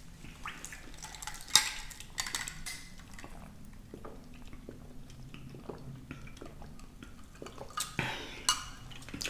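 Scattered light clinks and knocks of dishes and utensils being handled, the sharpest a little over a second and a half in.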